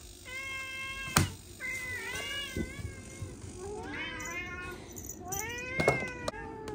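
Domestic cats meowing insistently at feeding time, four drawn-out meows in a row. There is a loud sharp click about a second in and a few more knocks near the end.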